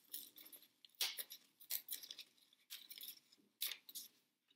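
Paper tearing along a line of pin-pricked holes in several short, faint bursts about a second apart, as the perforated shape is pushed free of the sheet.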